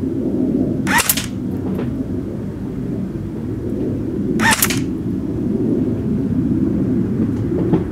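Jing Gong G36 electric airsoft rifle firing two single shots about three and a half seconds apart, each a short sharp snap with a brief rising whine from its battery-driven gearbox. A steady low rumble runs underneath.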